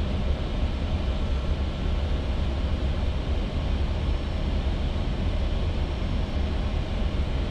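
Steady flight-deck noise of an Airbus A320 on final approach, heard inside the cockpit: a deep rumble of airflow and engines with an even hiss above it.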